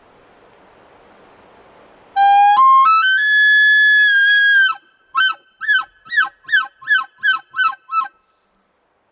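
Elk bugle, loud and close: a whistle that climbs in steps from low to high and is held for about two and a half seconds, then eight quick chuckles at about three a second.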